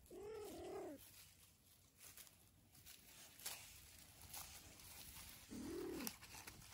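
Kitten meowing twice: a two-part meow at the start, then a single meow rising and falling about five and a half seconds in.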